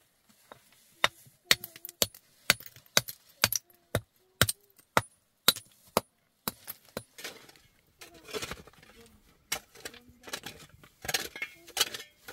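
Hand hammer striking and chipping flat stone slabs: sharp clinking knocks, about two a second for the first seven seconds. After that comes a rougher scraping and crunching, a shovel digging into stony ground.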